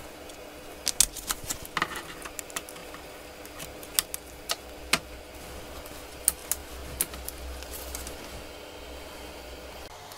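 Irregular small clicks and taps of a plastic opening pick and tools against an iPhone SE 2020's frame and glass as the display is pried loose and lifted, over a faint steady hum.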